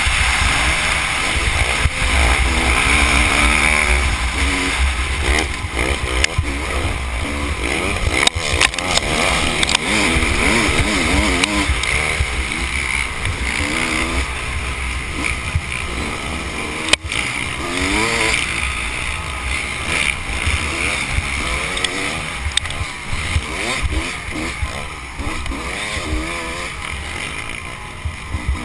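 Dirt bike engine heard from the rider's helmet, revving up and falling back again and again as it is ridden hard over rough ground, over heavy wind rumble on the microphone. A single sharp knock about halfway through.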